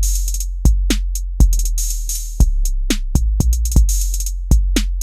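Drum-machine beat playing back from BandLab mobile, starting suddenly: a long deep 808 bass held under kick and snare hits and fast hi-hat rolls.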